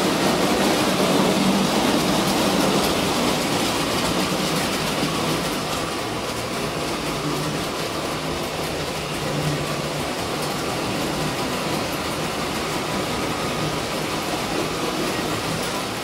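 Electric model train running on the layout's metal track: a steady whirring rumble with fine rapid clicking from the wheels.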